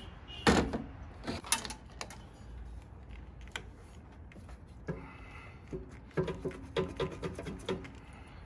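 Metal knocks and clunks of parts being handled in a van's engine bay as the alternator is worked free of its mount. Two sharp knocks come in the first two seconds, then a quick run of clunks with a little ringing about six to eight seconds in.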